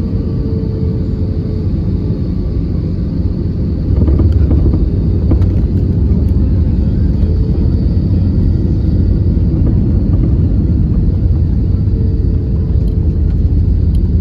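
Airbus A320 heard from inside the cabin during landing: a steady rumble, then about four seconds in a few knocks as the wheels touch down, and the rumble grows louder and stays heavy as the ground spoilers come up and the aircraft rolls out along the runway.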